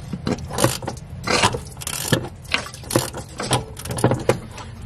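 Pickup engine being turned over slowly by hand with a wrench: irregular clicks and scrapes, with short hissing spurts as water is forced out of the cylinders through the open spark-plug holes. The water got into the engine when a fuel fire was put out.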